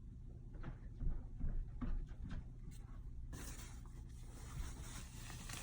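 Faint scattered taps and knocks over a steady low hum, with the background hiss rising about three seconds in.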